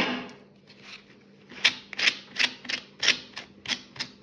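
A wire slicker brush raking through the cut ends of a macramé cord fringe to fray them out: short scraping strokes about three a second, from a little over a second in. It opens with a single sharp knock.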